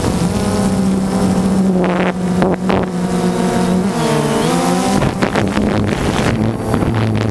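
Multirotor drone's motors and propellers running steadily, their pitch dipping and then rising again about four to five seconds in, with a few short rushes of noise.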